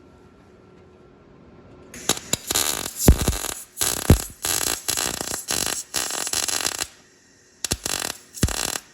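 Wire-feed (MIG) welder arc crackling and sputtering in short stop-start bursts, beginning about two seconds in, pausing, then two brief bursts near the end.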